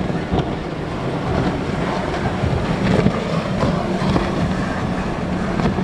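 Center-console outboard boat running at full speed through choppy water: a steady engine hum under the rush of hull spray and waves, with wind buffeting the microphone.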